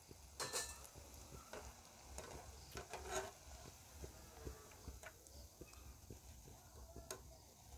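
Faint sizzling of hot oil as fried cabbage pakoras are scooped out of a deep pan with a wire-mesh strainer, with scattered light clicks and scrapes of the strainer against the pan.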